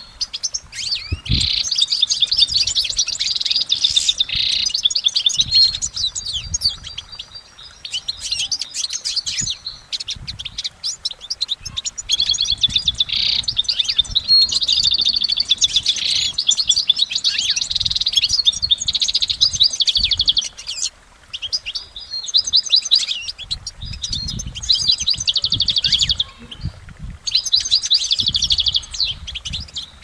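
European goldfinch singing: long runs of rapid, twittering trills and chirps, broken by short pauses several times.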